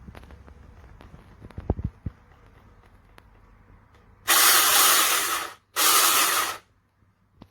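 Two loud bursts of hissing spray, the first lasting over a second and the second just under a second, with a short gap between them.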